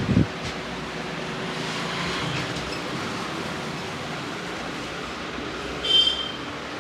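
Steady roadside street and traffic noise, with two low thumps right at the start and a short high-pitched tone about six seconds in.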